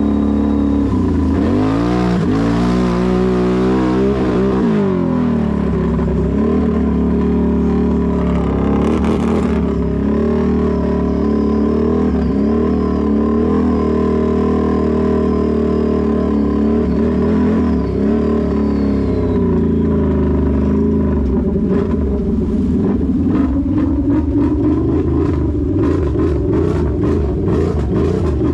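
Can-Am Renegade XMR 1000's V-twin engine through an aftermarket megaphone exhaust, running under throttle with the revs rising and falling several times. In the last several seconds a rapid run of sharp knocks and clatters plays over the engine.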